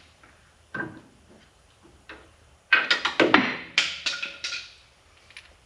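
Metal clanks and clatter from handling a truck's front brake caliper bracket and its bolts: a single knock, then a quick run of sharp clanks with a short metallic ring.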